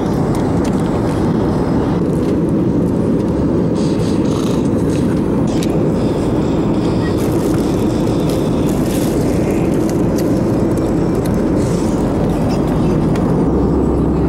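Steady cabin noise of a passenger jet in flight: engine and airflow noise heard from inside the cabin, with a few light handling knocks about four to five seconds in.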